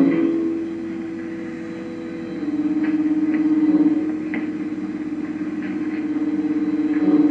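Background music of held low chords with a slow wavering. The chord changes about two and a half seconds in, and a few faint ticks sound over it.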